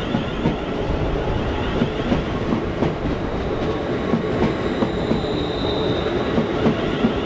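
A Class 350 electric multiple unit passing close by at the platform alongside a container freight train on the next track: steady wheel and rail rumble with irregular clicks of wheels over rail joints. A faint high squeal comes in about five seconds in.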